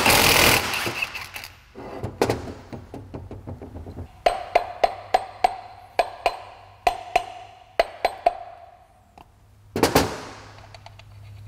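Cordless impact wrench rattling for about a second and a half on the supercharger's pulley nut, then a run of about a dozen sharp hammer blows on the supercharger body and pulley, each with a short metallic ring, to work the pulley off. One more loud knock near the end.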